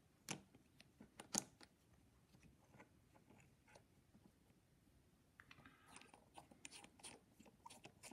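Near silence with faint, scattered light clicks of small metal tools being handled, including an AR-15 bolt and an ejector tool. A few taps come about a second in, then a denser run of light clicks near the end.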